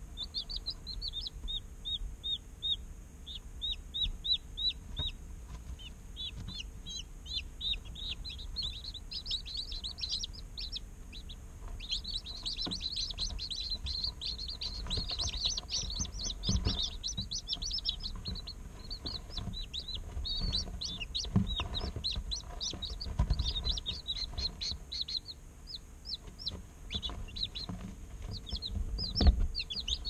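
Day-old chicks peeping continuously, many quick high-pitched chirps overlapping, getting busier about halfway through. A few low thumps come in among them, the loudest near the end.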